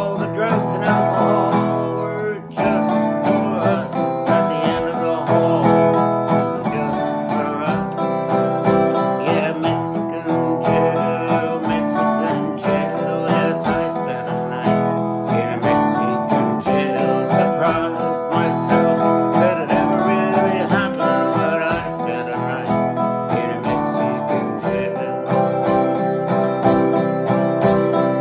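Acoustic guitar being strummed and picked, with a man singing along.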